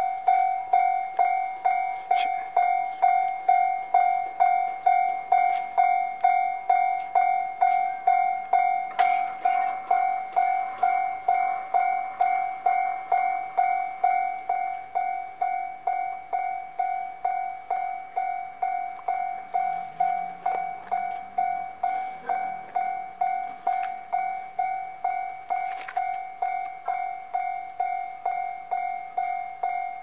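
Japanese level-crossing warning bell ringing steadily, about two rings a second. It signals that the crossing is closed for an approaching train, and the gate comes down partway through.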